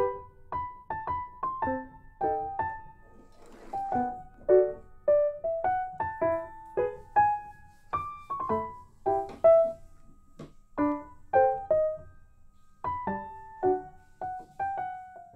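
Background music: a piano playing a gentle melody of separate struck notes, roughly two a second, with a short pause about two-thirds of the way through.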